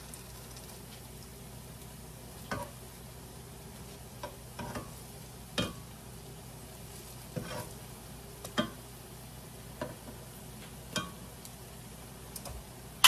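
Banana fritters sizzling in hot oil in a frying pan, with metal tongs clicking against the pan every second or two as the fritters are turned.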